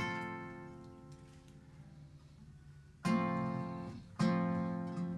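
Acoustic guitar strummed: one chord rings out and slowly fades for about three seconds, then two more chords are strummed about a second apart near the end.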